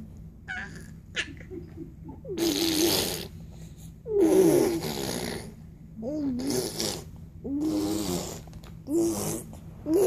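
Baby making a run of raspy, breathy vocal noises, about six in turn, each lasting up to a second with short pauses between.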